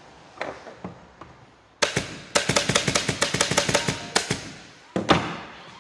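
Upholstery staple gun firing staples into a wooden chair frame to fix a strip of new webbing. One shot, then a rapid run of shots several a second for about two seconds, and one more shot near the end.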